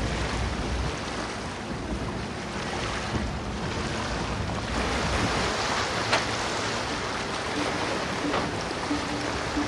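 Wind buffeting the microphone over a steady rushing outdoor ambience, with a low rumble in the first second. Near the end a low tone starts pulsing on and off.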